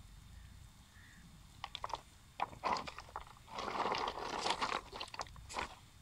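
A wet gill net full of small fish crunching and scraping over river pebbles as it is hauled ashore and piled on the stones, mixed with footsteps on the pebbles. It is quiet for about the first second and a half, then comes a run of sharp crunches and a dense scraping stretch past the middle.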